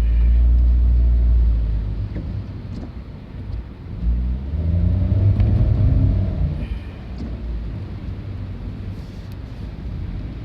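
Low engine rumble of a passing vehicle, swelling twice: once right at the start and again about five seconds in.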